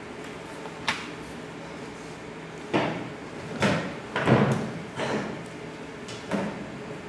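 Irregular thumps and knocks of dancers' feet and bodies landing on a stage floor, about six hits with the loudest just past the middle, over a steady low room hum.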